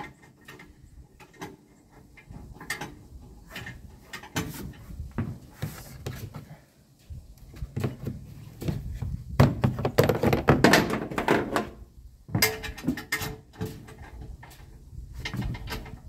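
Scattered metal clinks and knocks as steel fifth-wheel hitch parts, bolt and plate, are handled and fitted by hand, with a louder stretch of scraping and rustling close to the microphone about ten seconds in.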